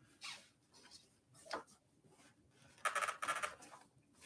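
Handling noises of packaging on a bike frame being worked loose: a few short rustles and clicks, then a louder crinkling rustle about three seconds in.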